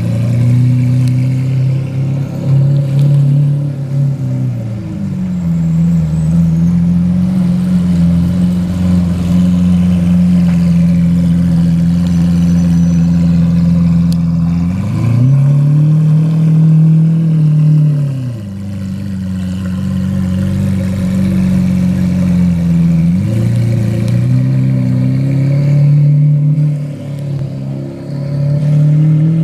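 Lamborghini Aventador Roadster's V12 through an aftermarket exhaust, running at low revs while moving slowly. The engine note rises, holds and falls back twice, once around the middle and again about three quarters of the way through.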